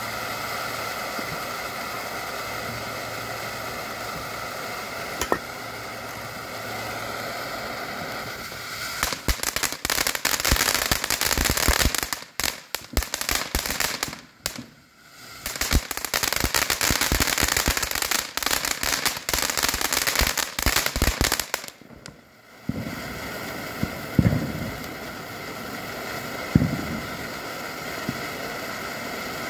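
TNT Fireworks Crypto ground fountain burning with a steady hiss. About nine seconds in it breaks into dense crackling that goes on for about twelve seconds, with a brief lull partway through. It then returns to a hiss with a few sharp pops near the end.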